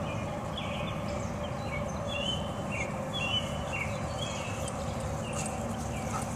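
Songbirds chirping in short repeated notes over a steady low background noise, with the faint hoofbeats of a Tennessee Walking Horse moving over grass.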